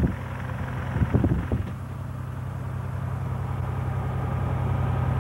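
Light aircraft's piston engine running steadily, heard from inside the cabin, growing gradually louder over the second half. A few short knocks in the first second and a half.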